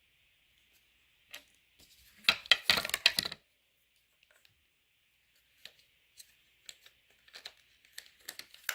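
Small plastic anatomy-model pieces being handled: a quick flurry of clicks and clatter about two seconds in, then scattered single clicks and taps.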